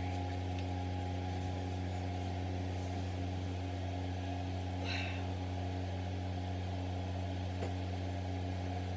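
A steady low mechanical hum holding one even pitch, with a brief higher squeak about five seconds in.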